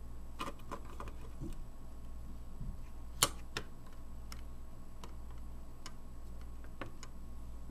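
A scattering of small sharp clicks and taps as a circuit board is pressed back into place in a trail camera's plastic housing, the loudest one about three seconds in. A steady low hum runs underneath.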